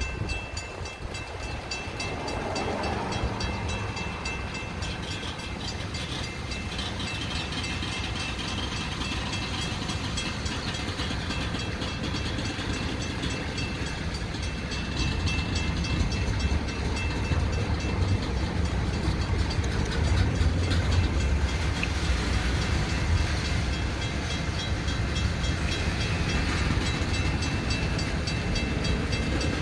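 Freight train of covered hopper cars rolling slowly through a grade crossing, a steady rumble of wheels on the rails that grows louder about halfway through.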